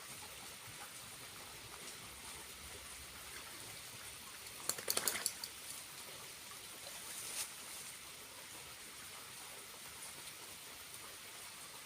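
Small waterfall running with a steady trickling hiss of water. A brief cluster of sharp clicks comes a little before the middle, and a single fainter one about two and a half seconds later.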